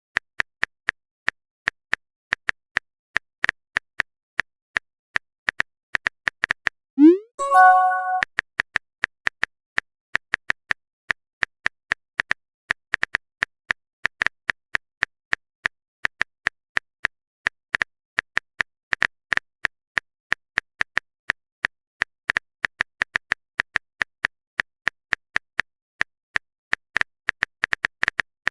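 Phone keyboard typing sound effect: quick, irregular taps going on steadily. About seven seconds in there is a short rising swoop followed by a brief chime.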